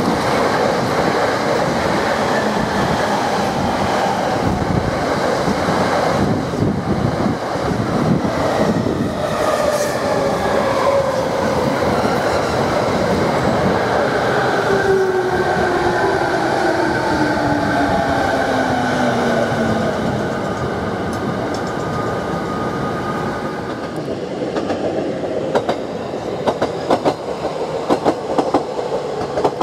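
JR East E217 series electric commuter train passing close, its traction motors whining in several tones that fall slowly in pitch as it slows, over the rumble of wheels on rail. Near the end the sound changes to a JR East E127 series train running, with sharp clicks of wheels over rail joints.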